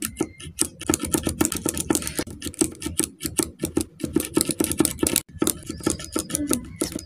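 Silver paint marker's tip being pumped against a hard surface to prime it: rapid, sharp clicking, several clicks a second.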